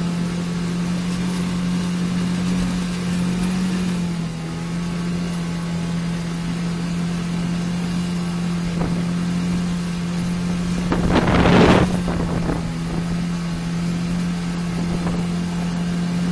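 A 9.8 hp outboard motor running at a steady speed as the small boat travels, its pitch dropping slightly about four seconds in. A brief loud rushing noise rises and falls about eleven seconds in.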